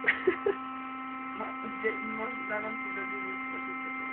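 Electric air pump running with a steady hum while inflating an air mattress. A few short voice sounds come near the start, with fainter ones in the middle.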